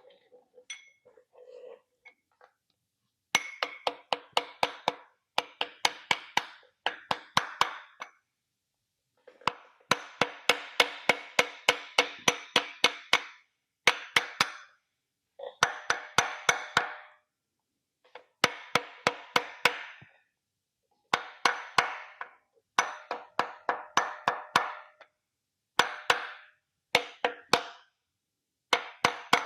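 Rubber mallet tapping rapidly on a seal installer, driving an LS3 rear main seal into its housing. The strikes come in quick runs of about five a second, with short pauses between runs.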